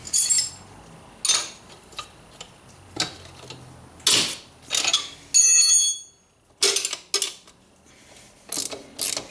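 Hand tools working on metal: a socket and wrench clicking and knocking against the Banshee's axle carrier bolts as they are loosened, with irregular sharp clicks. About five and a half seconds in comes a bright metallic clink that rings briefly.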